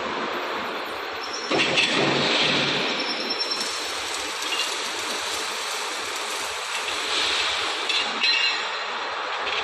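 Metal clattering and clinking over a steady noise, with two louder stretches of rattling that carry short high metallic rings. This is typical of chain-grate links and parts being handled during installation.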